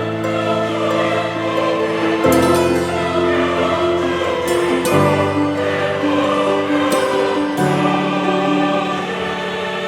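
Background music: slow sustained chords that change every two to three seconds, with a wordless choir-like voice layer and light shimmering accents.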